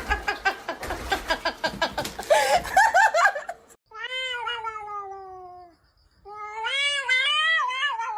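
Cat yowling: two long, drawn-out meows, the first sliding down in pitch, the second wavering up and down. Before them comes a busy stretch of rapid, overlapping short calls that cuts off abruptly.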